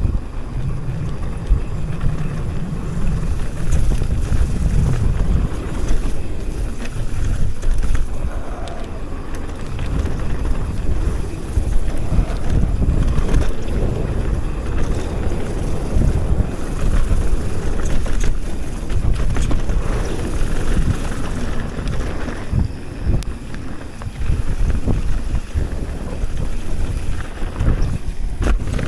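Wind buffeting a helmet- or chest-mounted action camera's microphone on a fast mountain-bike descent, over the rumble of knobby tyres rolling on packed dirt. Frequent short knocks and rattles from the Commenal Meta TR trail bike's frame and suspension as it runs over bumps and berms.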